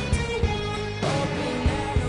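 Background rock music with a steady beat, guitar and singing.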